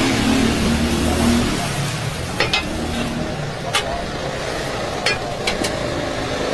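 Steel griddle sizzling steadily under a bread loaf held down with a handled steel press plate, with a few sharp metallic clicks from about two seconds in.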